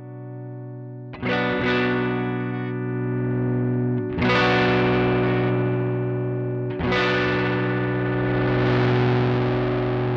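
Electric guitar played through a Joyo American Sound amp-simulator pedal straight into an audio interface: one chord strummed three times and left to ring, while the pedal's drive knob is turned up between strums. Each strum comes out louder and more distorted.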